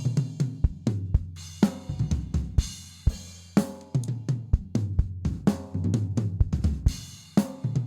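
Drum kit playing a gospel groove built around a swung four-note pattern, with bass drum, snare, hi-hat and cymbal hits in a steady rhythm.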